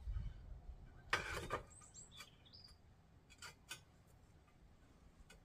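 A short rasping scrape about a second in, from work on the roof tiles and mortar. Then a bird chirps a few brief notes, and there are a few light taps.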